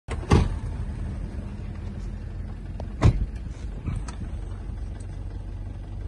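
Vehicle engine idling with a steady low hum, broken by two sharp knocks, one just after the start and one about three seconds in.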